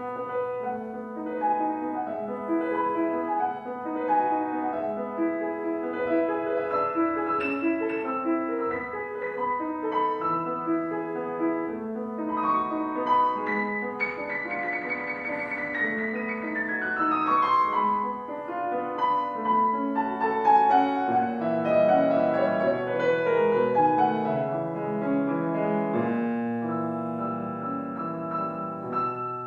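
Solo piano playing a classical-style piece of separate struck notes; about halfway through, a flurry of rapid high notes leads into a fast run down the keyboard, followed later by a second descending run.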